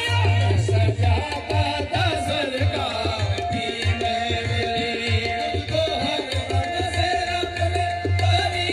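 Live qawwali played through a loudspeaker system: a driving tabla rhythm with heavy bass under the qawwali party's singing.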